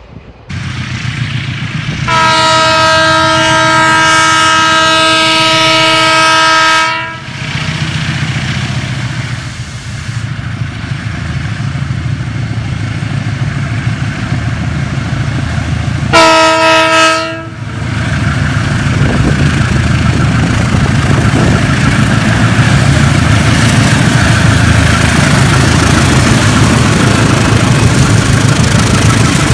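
Transnet Class 35 diesel locomotives approaching and passing a level crossing: a long, loud multi-tone horn blast of about five seconds, a short second blast about ten seconds later, then the diesel engines' rumble growing louder as they pass close by.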